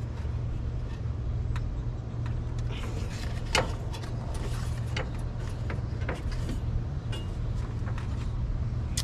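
Steady low hum with scattered light clicks and knocks of parts and tools being handled while working on a Jeep XJ, one sharper knock about three and a half seconds in.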